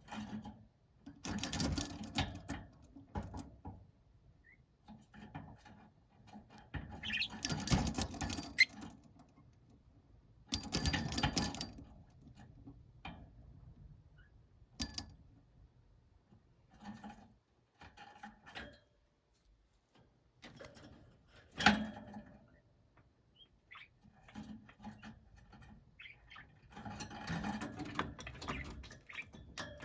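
Pet budgerigars moving about their cage: bursts of rustling and scratching, with scattered light taps and one sharp click about three-quarters of the way through.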